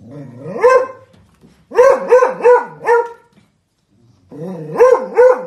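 Beagle barking in short, pitch-sliding calls: one rising call near the start, a quick run of four barks about two seconds in, then a few more near the end.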